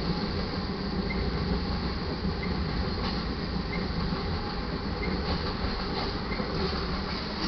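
Freight train of open-top hopper cars loaded with rock rolling past: a steady heavy rumble of steel wheels on rail, with a few faint clacks.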